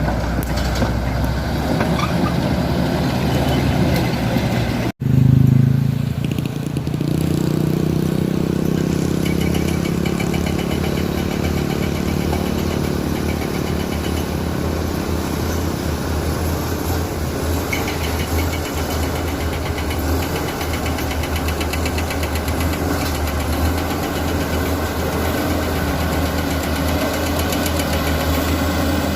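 Komatsu D85E-SS bulldozer's diesel engine running steadily. About five seconds in there is a sudden break, then a brief louder surge, and a fast fine ticking comes and goes over the engine later on.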